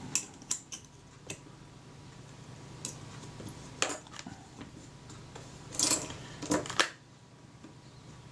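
Scattered light clicks and taps of steel tweezers and fingertips on a Kodak Retina IIIc camera's metal body as its leatherette covering is pressed down. There are about eight small clicks, the loudest a little past halfway.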